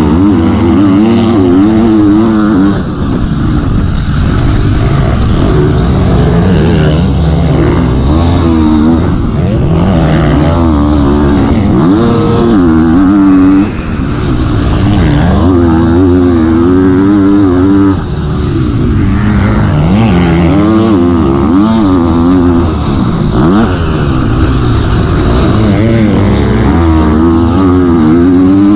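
KTM 250 motocross bike's engine at full race pace, its pitch climbing and falling again and again as it revs up and shifts through the gears. The sound drops briefly about three times.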